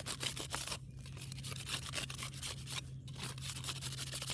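Metal painter's tool worked under asphalt roof shingles, scraping and tearing through the adhesive seal strip in a rapid run of short strokes, with brief pauses.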